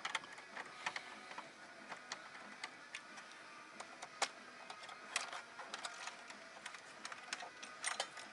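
Irregular small clicks and ticks of a screwdriver backing out the screws that hold a PS4's power supply, with metal parts being handled; a few louder clusters of clicks about five and eight seconds in.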